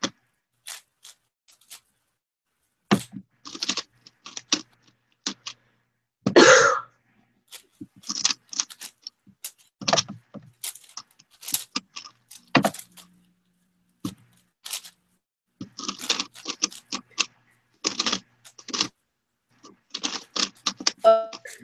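Megaminx puzzle being turned fast by hand on its last layer: irregular runs of quick plastic clicks and clacks as the faces snap round. One louder half-second burst about six seconds in.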